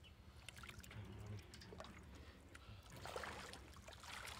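Shallow muddy water splashing and sloshing irregularly as hands grope through it for fish, the busiest stretch from about three seconds in.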